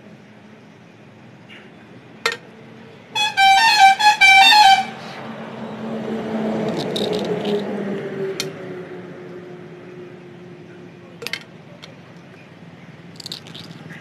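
A passing vehicle's horn honks in a rapid run of short toots for about a second and a half, then its engine passes with a falling pitch and fades. A few sharp clicks come from a quail-egg cutter snipping shells.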